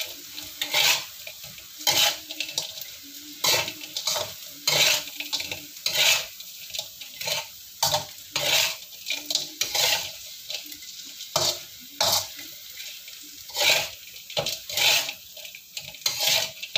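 A spatula scraping and knocking against a wok as fried potato pieces are stirred in hot oil, in irregular strokes about once or twice a second, over a steady sizzle.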